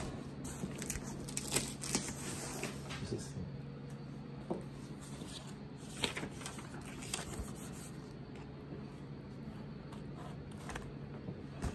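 Cardboard box being handled: scattered rustles, scrapes and light knocks, over a low steady hum.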